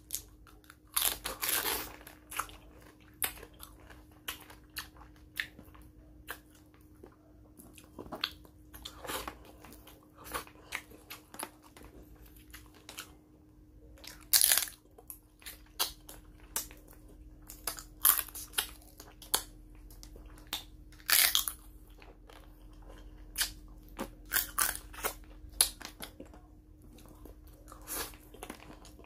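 Close-miked eating of cooked crab: irregular crunches and cracks as the shell is broken apart by hand and bitten, with chewing between them, over a faint steady hum.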